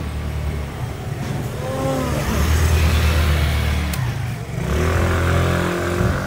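Motor scooters and a canopied three-wheeler passing close along a narrow, busy street, their motors giving a low drone. The drone swells twice, about two seconds in and again near the end, as vehicles go by.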